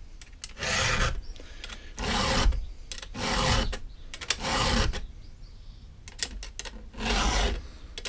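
Round chainsaw file rasping across the cutters of a Stihl saw chain, about five separate push strokes of roughly half a second each. There is a pause with a few light clicks about six seconds in.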